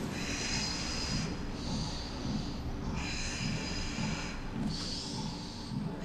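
A woman breathing in and out hard through an exercise move, a breath about every second or so.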